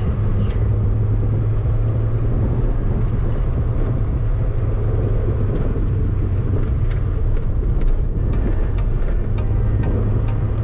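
First-generation Toyota Vios sedan heard from inside the cabin while driving on asphalt: a steady low engine and road hum. A few light ticks come in over the second half.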